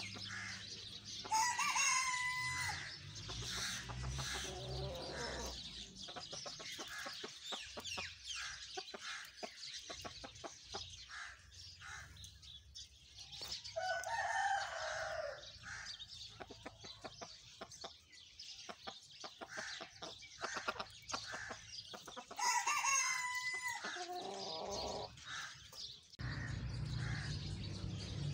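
Bantam rooster crowing twice, once about a second in and again about 22 seconds in, with another call near the middle and clucking between. A low steady hum comes in near the end.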